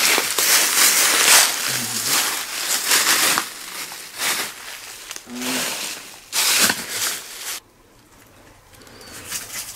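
Footsteps crunching through dry fallen leaves, in irregular bursts that stop about three-quarters of the way through.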